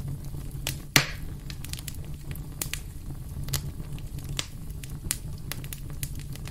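Record-style crackle: scattered pops and clicks over a low steady hum, with one loud pop about a second in, then it cuts off suddenly.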